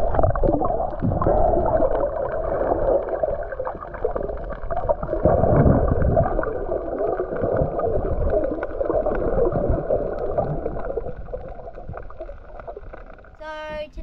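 Muffled underwater noise picked up by a camera below the surface: water gurgling and a swimmer's movements, dull and rumbling with the high end cut off, with scattered small clicks.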